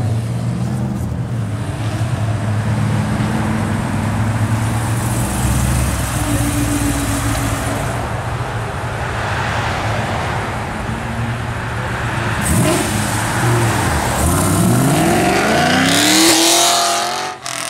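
Car engines running as cars drive past, then a Pontiac G8 sedan pulling out and accelerating hard. Its revs climb in rising sweeps to the loudest point near the end before dropping away.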